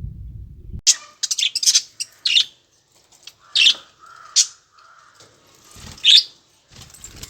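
Budgerigars chirping in sharp, high calls: a quick cluster about a second in, then single chirps every second or two, with soft warbling between them. A low rumble is heard before it stops suddenly just under a second in.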